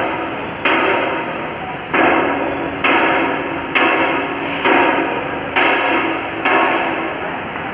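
Heavy blows struck at an even pace, about one a second, seven in a row, each ringing away before the next; they stop near the end.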